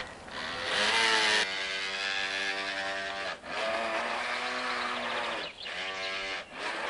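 Radio-controlled model boat's motor running with a steady whine, dropping in pitch and picking up again about three times as the throttle is worked. A rushing hiss sounds over the first second or so, then stops abruptly.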